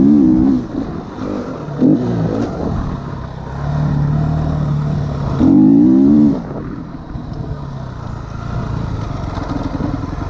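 KTM motocross bike engine being ridden, revving up with rising pitch at the start and again about five and a half seconds in, with steadier lower running between. After about six and a half seconds it drops back to lower, quieter running as the bike slows.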